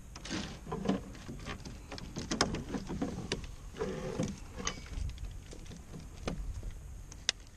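Irregular small clicks, taps and rattles of fishing gear being handled in a canoe as a largemouth bass is held and a lip-grip scale is clipped onto its jaw.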